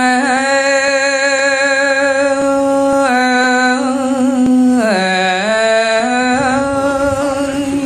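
Khmer smot, a Buddhist chanted recitation, sung by a single voice in long held notes with wavering ornaments; the pitch drops lower about five seconds in, then climbs back.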